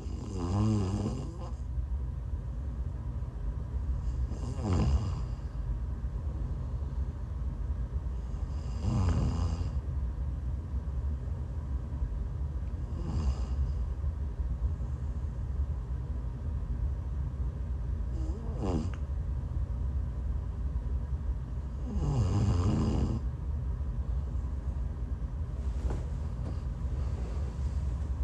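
A woman snoring while sick: seven snores about four seconds apart, each a pitched rasp that wavers in pitch, with a breathy hiss. A steady low rumble runs underneath.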